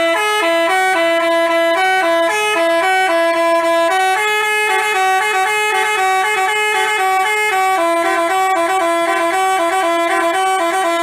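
Basuri telolet bus horn playing a fast melody, its notes stepping up and down several times a second in two voices at once, loud and unbroken.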